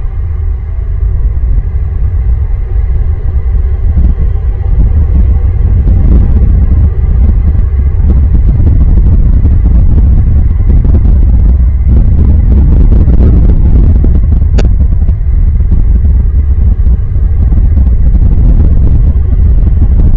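Loud, steady low rumble, with one brief sharp click about two-thirds of the way through.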